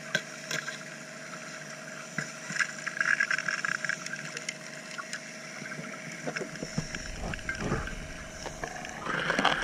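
Underwater sound of a suction dredge at work: the dredge's motor hum carried through the water, with scattered clicks and knocks of stones at the nozzle and bedrock. From about two thirds in, low irregular rumbling and knocks grow louder.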